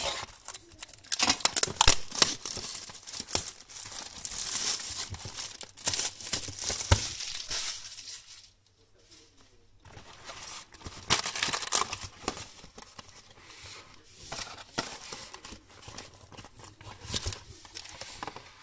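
Cellophane shrink wrap being cut and torn off a trading-card box, crinkling and tearing. About eight seconds in it stops briefly, then goes on more quietly with rustling of wrap and cardboard as the box is opened.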